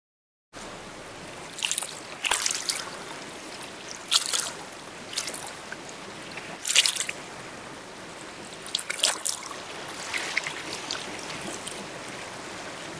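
Floodwater flowing among tree trunks: a steady rush of water with irregular splashes and gurgles every second or so.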